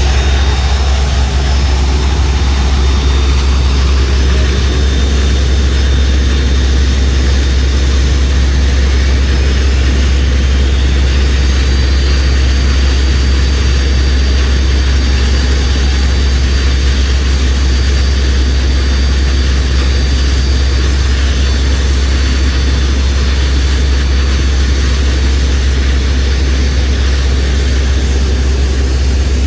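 Twin gas-turbine engines of a 6000 hp racing powerboat running at low power: a steady jet-like whine over a deep, constant rumble.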